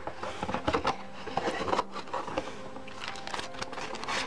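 Plastic wrapping rustling and crinkling, with light knocks and paper sliding, as a light stick is handled and packed back into its cardboard box. Faint music plays underneath.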